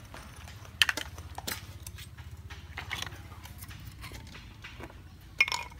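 Sharp clacks and knocks of snail shells being handled and chopped on a wooden board. A few separate hits, the loudest about a second in and near the end, over a low steady hum.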